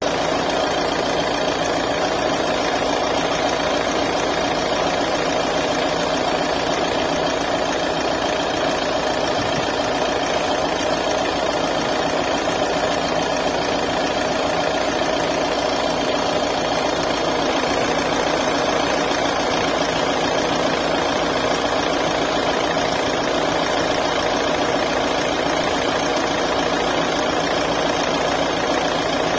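Mahindra XUV300 diesel engine idling steadily, with the compressor noise that the owner takes for a compressor fault.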